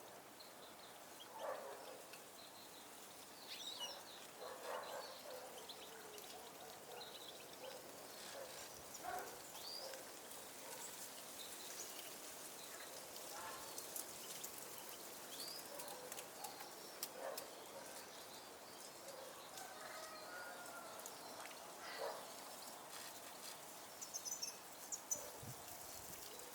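Faint, scattered short chirps and calls of small birds, coming every second or two, with a few sharp knocks near the end.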